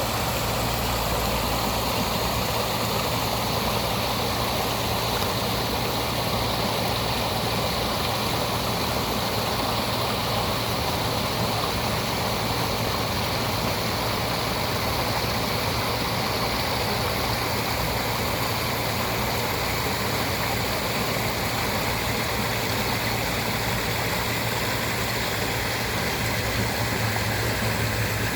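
Waterfall: a steady, unbroken rush of falling water with a deep rumble underneath.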